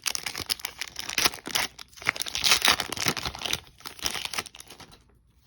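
Plastic wrapper of a baseball card pack being torn open and crinkled by hand, a dense crackle with small snaps that stops about five seconds in.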